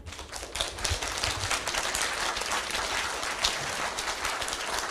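An audience applauding: steady, dense clapping from many hands.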